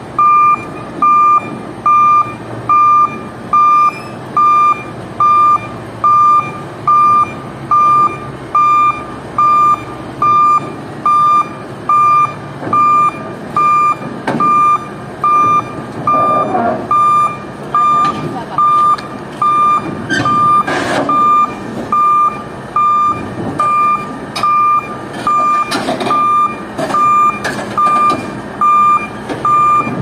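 Shantui SD22E crawler bulldozer backing down steel trailer ramps, its reverse alarm beeping steadily at about three beeps every two seconds over the running diesel engine. There are a few clanks from the tracks on the ramp.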